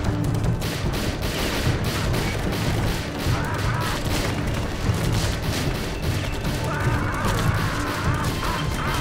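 A volley of police handgun fire: many pistol shots in rapid, overlapping succession.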